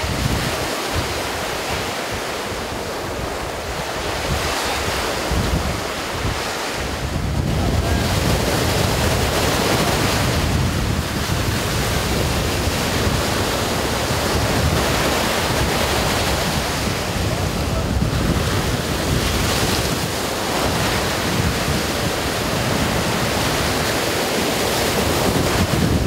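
Choppy sea surf, small waves breaking and washing, with steady wind rushing and rumbling across the microphone. The wind rumble grows heavier about seven seconds in.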